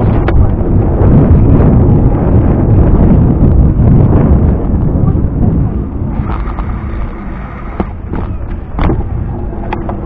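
Wind buffeting the microphone of a camera riding on a moving bicycle: a loud, low rumble that eases about six seconds in, with a few sharp clicks near the end.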